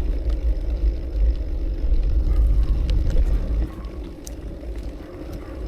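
Wind rumbling on the microphone of a bicycle-mounted or rider-worn camera while riding, a deep buffeting that eases a little past halfway through.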